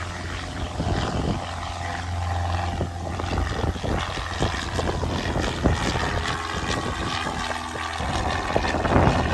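Single-engine Cessna's piston engine and propeller droning steadily as the plane flies past low overhead, with rough gusts of wind on the microphone.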